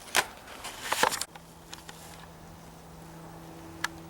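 Two clattering knocks of items being handled, then a steady low hum starts about a second in and runs on, with one sharp click near the end.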